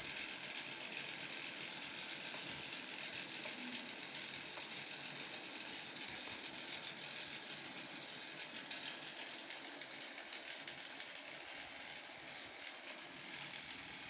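Small homemade electric fan running steadily: the motor and blades make an even whir with a faint high whine.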